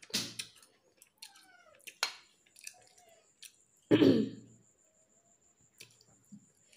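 Close-up wet eating sounds from chicken curry and rice eaten by hand: chewing, lip smacks and short mouth clicks, with one louder, lower sound about four seconds in.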